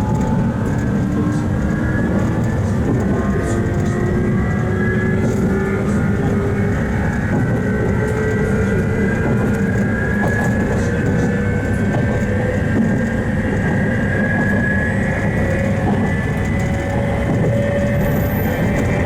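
JR East 719 series electric train accelerating: several whining tones from its DC commutator traction motors and gears climb slowly and steadily in pitch over a continuous running rumble. The jet-like whine is what the uploader calls an abnormal noise (異音), heard on most of these ageing units.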